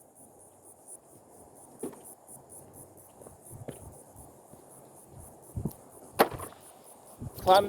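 Scattered scuffs and snaps of a person scrambling over dirt and brush, the loudest snap about six seconds in, over a steady pulsing chorus of insects.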